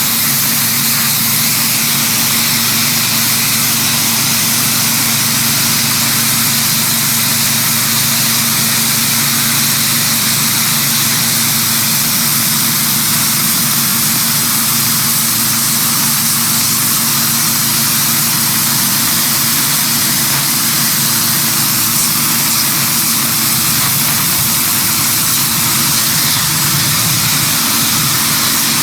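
Sun Joe SPX4000 electric pressure washer running steadily on max. Its motor and pump hum under the constant loud hiss of the water jet from a 15-degree nozzle, spraying mildew and grime off flagstone.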